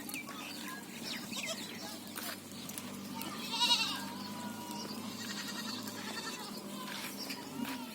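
Sojat goats bleating: one loud, high, quavering bleat about three and a half seconds in, with a few fainter bleats around it.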